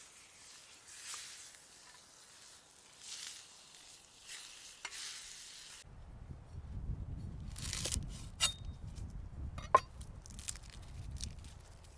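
A steady hiss, then after an abrupt cut about six seconds in, a low rumble with scattered sharp cracks and snaps of wood, a few of them loud.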